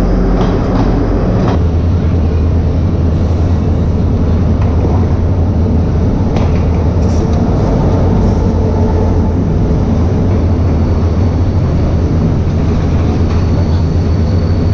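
Diesel locomotive passing slowly along a station platform hauling passenger carriages, its engine running with a steady low drone.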